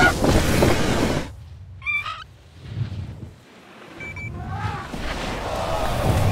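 Cartoon sound effects of an elephant skidding on all fours through snow: a loud rushing scrape that eases off after about a second, then builds again near the end. There is a brief squeak near two seconds and a short high beep about four seconds in, as it crosses the finish line.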